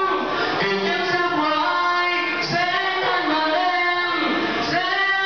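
A young man singing solo into a handheld microphone. He holds long notes that slide between pitches, with short breaks about every two seconds.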